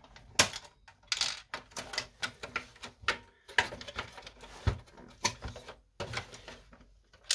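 Irregular plastic clicks, taps and knocks from hands handling the parts of an opened HP Deskjet 2132 inkjet printer, trying to work the pickup roller assembly free.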